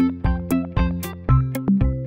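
Background music: an instrumental track with a steady beat of about two beats a second over pitched keyboard-like notes.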